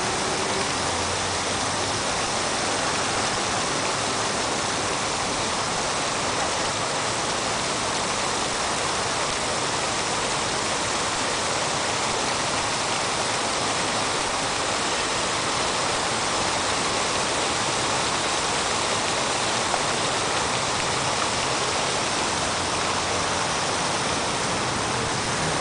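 A steady, even rushing noise with no breaks or distinct events.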